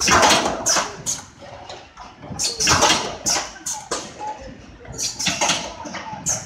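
Fixed-knot wire fence machine running, with repeated short hissing and clattering bursts at an uneven pace of about one every half second to a second.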